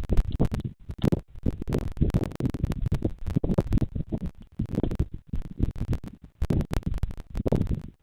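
Irregular low rumbling broken by crackles and clicks, picked up close on the nest camera's microphone.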